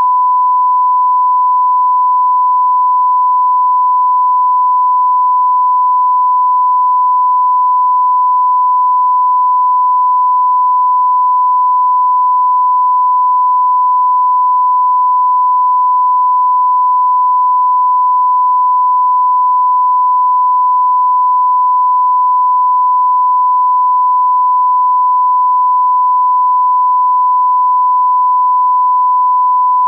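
Steady, unbroken 1 kHz sine-wave test tone, the line-up tone that goes with a television test card.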